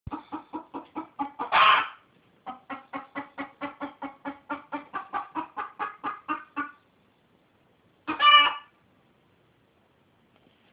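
A domestic chicken clucking in quick runs of short calls, about five a second, broken by a louder squawk just before two seconds in. A single loud squawk follows after a pause about eight seconds in.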